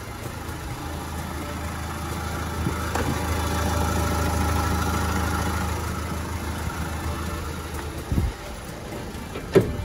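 Renault Sandero Stepway 2's engine idling: a steady low hum that grows louder for a few seconds in the middle as the microphone nears the engine bay. Two short knocks come near the end.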